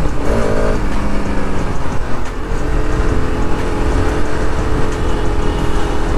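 Bajaj Pulsar RS 200's single-cylinder 200 cc engine running under way in traffic, with heavy wind rumble on the camera's microphone; a steady engine note settles in from about halfway through.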